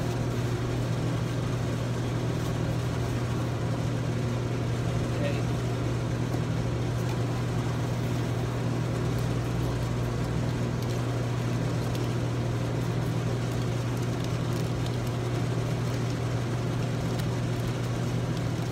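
Steady low mechanical hum over a constant background noise, unchanging throughout.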